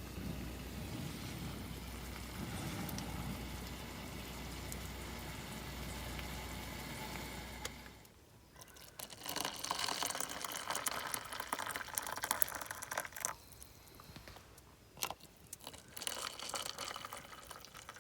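A low steady hum that stops abruptly about eight seconds in, followed by water bubbling and being poured, with small clicks and clatters.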